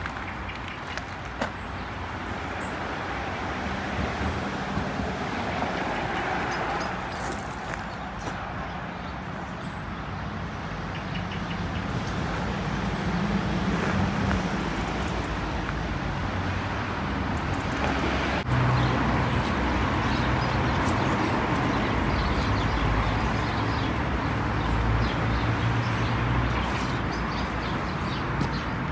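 Road traffic going by, a steady hum of engines and tyres that grows louder in the second half.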